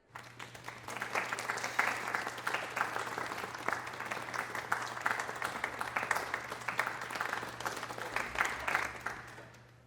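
Audience applauding: many hands clapping together. It starts suddenly, holds steady, and fades out near the end, with a faint steady hum underneath.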